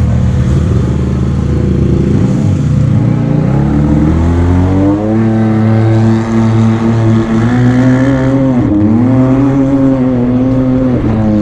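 Side-by-side UTV engine under hard acceleration. Its pitch climbs about three to five seconds in and then holds high and level. Near nine seconds it dips briefly, then climbs back and holds again.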